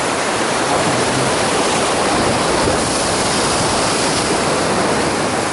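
Sea surf washing and breaking over rocks close by: a steady, loud rush of foaming water.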